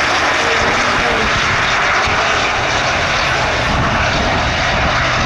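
Chevrolet Silverado diesel pickup accelerating at full throttle on a drag-strip pass, a loud, steady engine noise.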